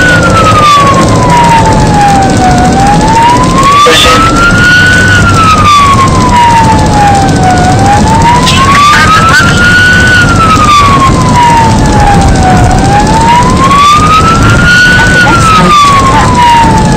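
Emergency vehicle siren on a wail, its pitch sliding slowly up and down about once every five seconds, heard from inside the responding vehicle over engine and road noise.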